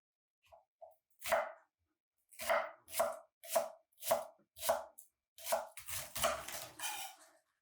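Kitchen knife chopping vegetables on a cutting board: single cuts at about two a second, then a quicker run of cuts near the end.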